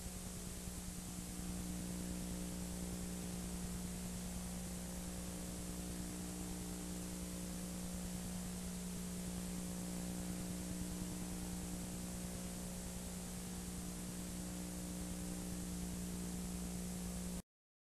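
Steady hiss and mains hum from an old analogue videotape recording, with no other sound, cutting off suddenly just before the end.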